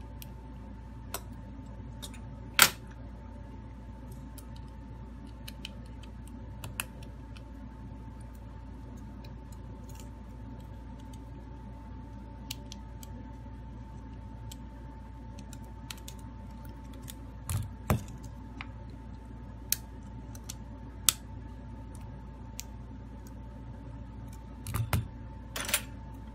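Scattered small clicks and taps of fingers and tools working on an opened smartphone's internals, the sharpest a few seconds in, then more near the middle and near the end, over a steady electrical hum with a faint high tone.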